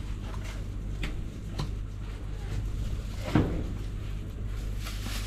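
Soft rustling and a few light knocks as fish are picked off crushed ice into a plastic bag, the most distinct knock about three seconds in, over a steady low outdoor rumble.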